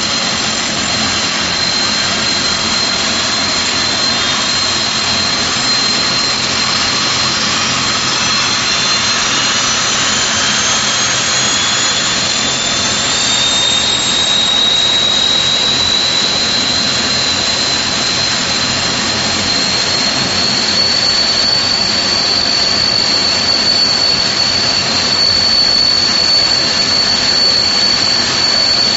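The Rolls-Royce Tyne turboprop engines of a Vickers Vanguard running on the ground, giving a loud, steady turbine whine. About a third of the way in, a second whine climbs in pitch and then levels off as an engine's speed increases.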